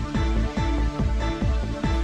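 Electronic background music with a steady, fast beat and held notes.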